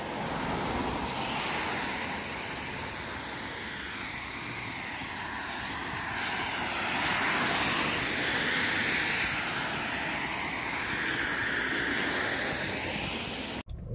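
Tyre hiss of cars passing on a wet street, a steady swishing that swells about halfway through.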